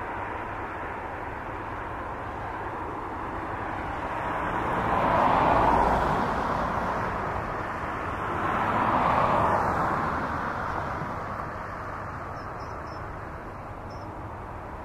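Boeing 777-300 jet engines running as the airliner moves slowly off its stand: a steady rush that swells loudly twice, about five and nine seconds in.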